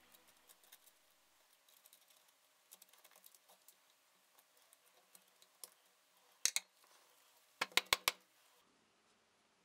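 Faint small clicks and taps as a Shimano DX PD-M647 clipless pedal and its parts are handled. There are two sharper clicks about six and a half seconds in and a quick run of four near eight seconds.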